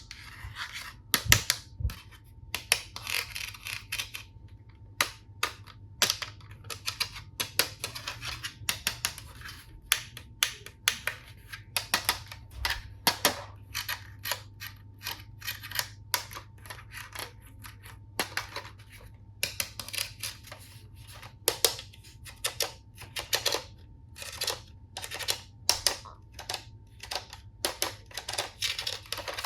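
Toy tool set plastic pieces being handled: a steady stream of irregular sharp clicks and taps, with short stretches of rustling.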